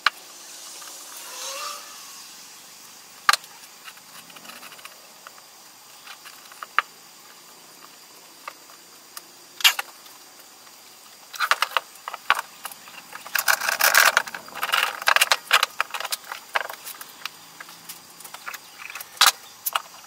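Glued cedar boards rubbed together briefly, then scattered clicks and knocks of wood and clamps being handled on a workbench. About halfway through comes a busy stretch of rapid clicking and rattling as one-handed bar clamps are set and squeezed tight onto the glue-up.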